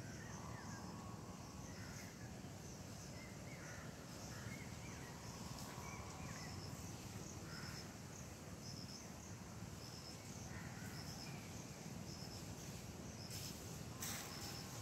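Woodland ambience: an insect chirping in short high pulses that repeat steadily, with scattered short bird calls, over a steady low rumble. A brief rustle or knock sounds near the end.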